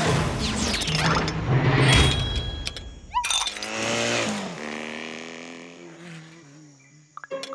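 Cartoon sound effects: a noisy rush with clattering and crashing for about three seconds, then a small motor scooter's engine buzzing off into the distance, its pitch sliding down as it fades away.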